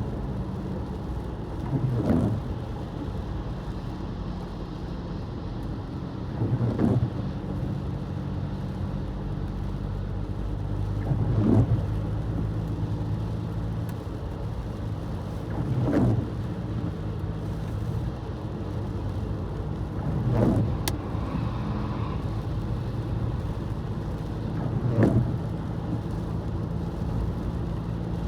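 Car driving in snow and rain: a steady engine and road hum, with a short, louder sound coming back at even spacing about every four and a half seconds.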